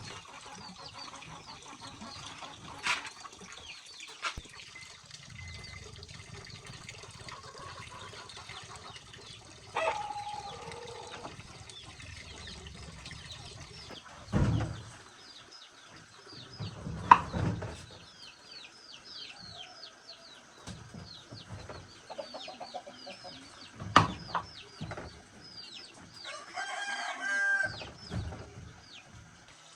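Chickens clucking with small birds chirping, and a longer call near the end. About five sharp knocks come at intervals, the loudest about two-thirds of the way through.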